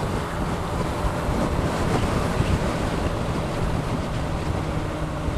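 Wind buffeting the helmet-mounted microphone at motorway speed, over the steady hum of a Suzuki Bandit 650's inline-four engine cruising.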